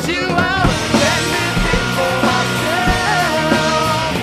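Rock music with a singing voice over a band with drums.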